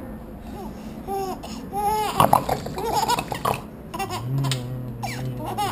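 Infant laughing and squealing in short, high, rising-and-falling notes, with a louder burst of laughter about two seconds in.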